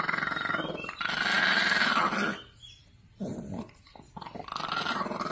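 Puppy growling over a scrap of food at another puppy, in two long, steady growls, then a pause of about a second with a few short growls before it builds again near the end.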